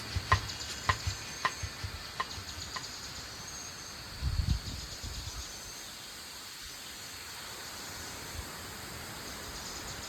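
Outdoor ambience with a steady high insect hiss, like crickets or cicadas. At the start a run of regular ticks about every half second fades away, and a low thump comes about four seconds in.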